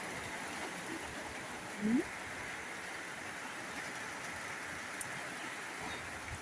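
Heavy rain falling steadily, a constant hiss. About two seconds in, a short rising voice-like sound briefly rises above it.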